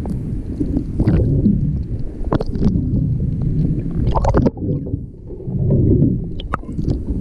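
Muffled underwater rumble and gurgle of water moving past a camera housing, with a few sharp knocks and scrapes about one, two and a half, four and six and a half seconds in.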